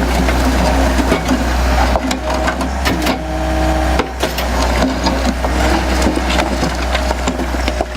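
Anross CB100 Crusha bucket's hydraulically driven jaw crushing concrete and sandstone: a dense run of sharp cracking and crunching. Underneath is the steady low running of the Takeuchi TB175 excavator's engine and hydraulics.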